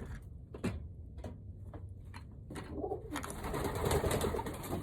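Pigeon cooing, with a few light clicks in the first half and a louder rustling noise in the second half.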